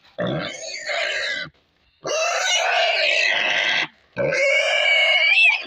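A restrained pig squealing in distress while it is being castrated: three long, loud squeals with short breaks between them.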